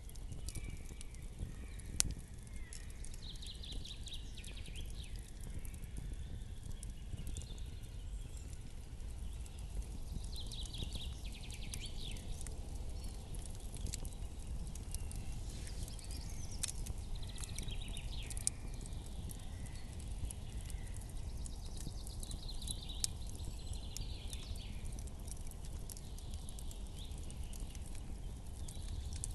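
Campfire crackling, with scattered sharp pops over a low steady rumble. A short, high rattling trill comes about every six seconds.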